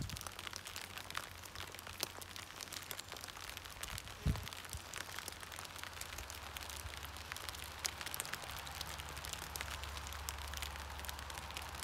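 Light rain falling, with drops ticking on plastic sheeting and wet card. One louder knock about four seconds in.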